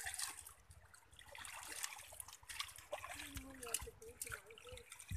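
Faint trickling and light splashing of muddy water as hands work through a fishing net full of small fish in a shallow pond, with small scattered ticks.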